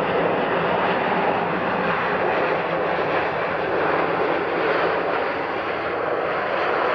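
Rolls-Royce Trent 1000 turbofans of a Boeing 787 Dreamliner running at taxi power: a steady, even rushing jet noise with no change in pitch.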